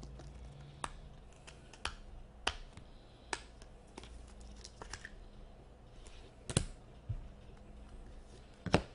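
2017-18 Upper Deck SP Authentic hockey cards being handled and thumbed through, giving a string of sharp, separate clicks and snaps as the card stock knocks together. The two loudest snaps come about six and a half seconds in and near the end.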